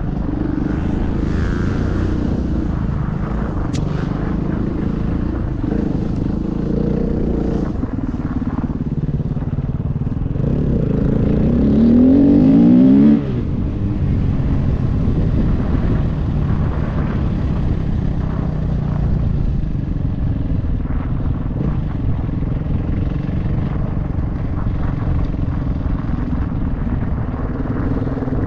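KTM EXC enduro motorcycle engine running under the rider with changing throttle. About halfway through, the revs climb for a couple of seconds to the loudest point, then drop off sharply.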